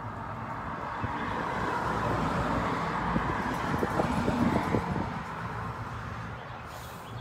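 A car driving past on the road, its tyre and engine noise swelling to a peak about halfway through and then fading away.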